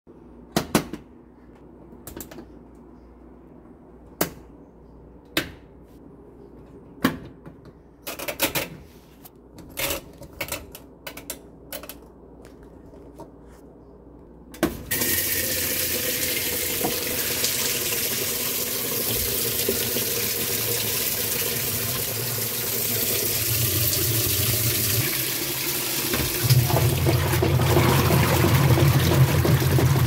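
Kenmore top-loading washing machine: a series of separate clicks as its control knobs are turned, then about halfway through the water inlet opens suddenly and water pours steadily into the tub. A low hum runs under the filling water and grows louder near the end.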